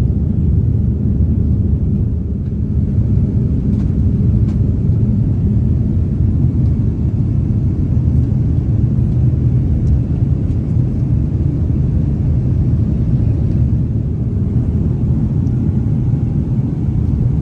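Steady low rumble inside the cabin of an Airbus A330-300 airliner: engine and airframe noise as heard from a passenger seat, with a few faint clicks.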